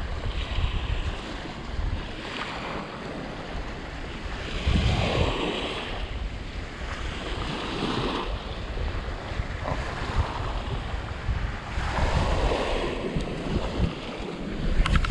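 Small waves washing up onto a sandy beach, the wash swelling every few seconds, with wind rumbling on the microphone.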